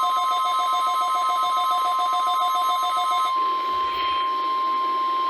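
NOAA Weather Radio warning alarm tone: one steady, unbroken high tone of about 1050 Hz, sent as the weekly test of the alert system. A second, pulsing two-note beeping plays over it and stops about three seconds in.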